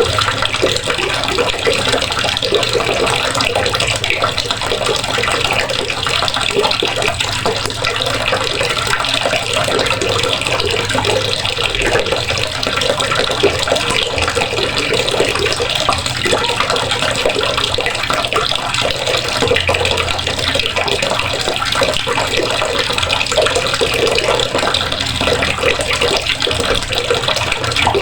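Water running steadily from a faucet, splashing into a basin below.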